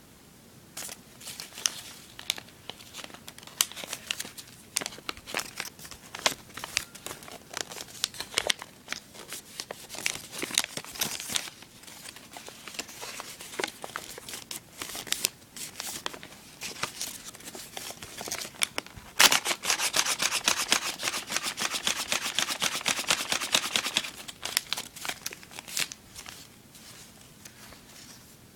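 Origami paper being handled and folded, crinkling and rustling in short, irregular crackles. It swells to a dense, fast run of crinkling for about five seconds in the second half.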